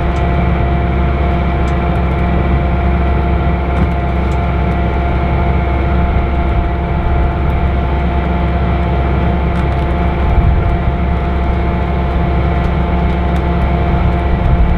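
A 502-hp Challenger 560C combine running steadily while harvesting corn: a continuous low engine hum with several steady whining tones from the machine, no change in speed or load.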